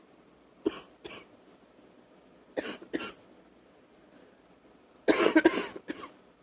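A woman's wet cough: two pairs of short coughs, then a louder fit of several coughs close together near the end.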